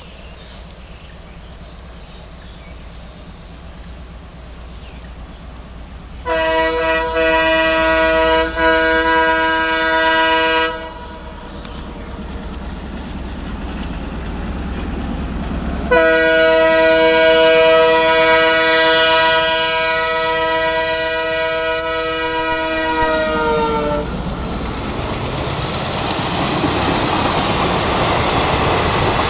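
WDM3D ALCO diesel-electric locomotive approaching at speed, its engine rumble growing louder, sounding a horn of several notes at once in two long blasts of about four and eight seconds. The notes of the second blast drop in pitch as the locomotive passes. The coaches then rush by with a steady clatter of wheels on rail.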